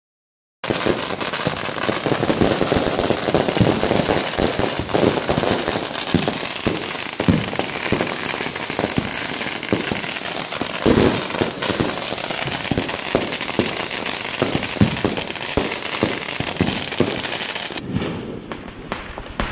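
Many fireworks and firecrackers going off at once: a dense, continuous crackle with frequent sharp bangs. It starts abruptly about half a second in and thins out near the end.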